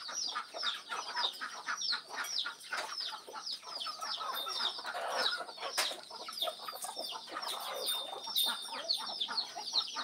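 A flock of chickens feeding, clucking, with many quick, high, falling chirps over the lower clucks.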